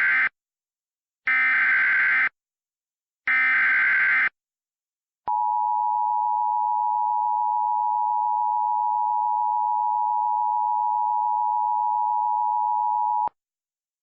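Emergency Alert System SAME header: the end of one burst of screeching data tones, then two more one-second bursts about a second apart. These are followed by the steady two-tone EAS attention signal, held for about eight seconds before it cuts off. Together they open a flash flood emergency alert.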